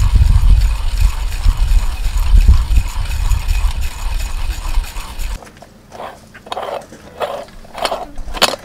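Manual burr coffee grinder being cranked through whole beans: a loud, rhythmic grinding with a heavy low rumble, which stops abruptly about five seconds in. Then a few separate metal clacks and knocks as a moka pot is handled and set on a camp gas stove, the sharpest near the end.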